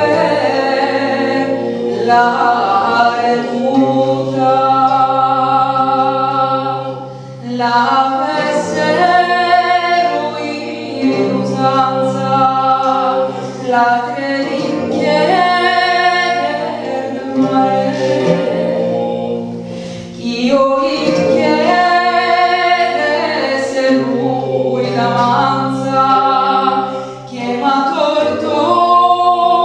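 A woman singing a slow, melodic folk song in long phrases, over a steady low accompaniment.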